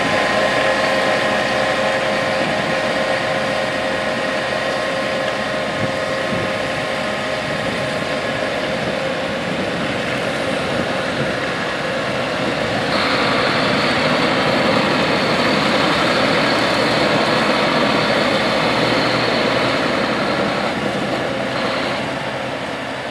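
John Deere 8RX 370 four-track tractor running and moving slowly across gravel: a steady machine sound with a few held whining tones at first. About halfway through, a louder, hissier rolling noise of the tracks joins, and the sound fades away near the end.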